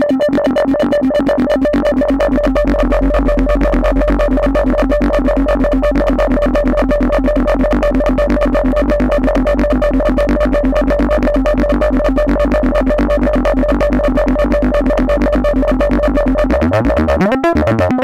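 Behringer System 100 analog modular synthesizer playing a loud, steady pitched tone over a low drone, chopped into fast, even pulses. Near the end the pitch sweeps upward and the pattern changes.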